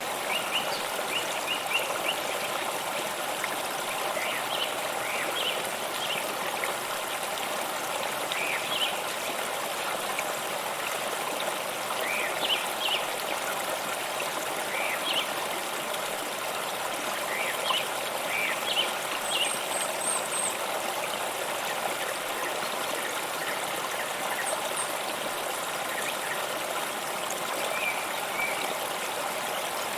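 Waterfall water running, a steady even rush, with a few short high chirps scattered through it.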